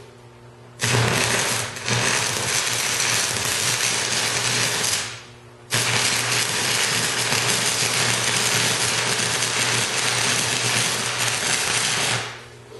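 Stick-welding arc from a 6010 1/8-inch rod burning on 3/16-inch mild steel, struck twice: a run of about four seconds, a half-second break, then a longer run of about six seconds that stops near the end.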